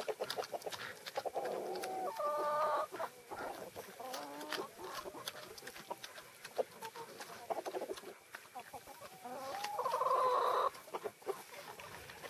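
Pot-bellied pig chewing and crunching dry food pellets off straw, a stream of crisp crunches and clicks. A bird calls twice with a drawn-out cluck-like call, about two seconds in and again near ten seconds.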